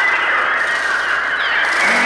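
Electronic bird cries made on a Mixtur-Trautonium: a dense, continuous mass of many short, overlapping sliding calls, like a large flock of birds.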